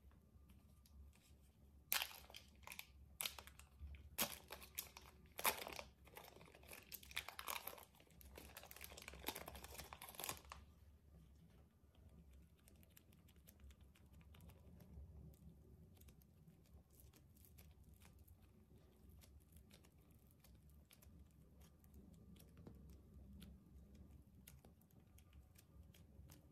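Thin plastic zip-lock bag crinkling and crackling as a lump of soft blue clay is squeezed and worked out of it, from about two seconds in until about ten seconds in. After that only faint, soft handling sounds of the clay being kneaded by hand.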